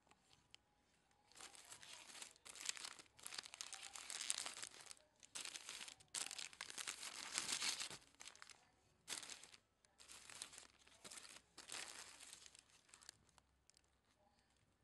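Tissue paper and plastic packaging crinkling and rustling in a series of bursts as a bow tie is handled and unwrapped, stopping near the end.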